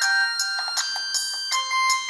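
A Sony Ericsson J220i mobile phone playing one of its built-in ringtones through its small loudspeaker: a synthesized melody of held and short notes over a steady beat of percussive hits, about three a second, with a thin sound and no bass.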